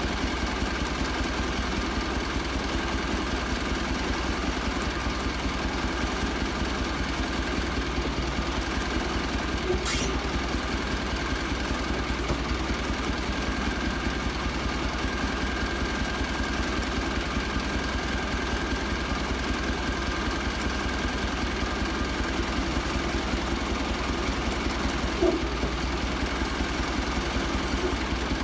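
Sawmill engine running steadily at an even speed, with a single sharp click about ten seconds in.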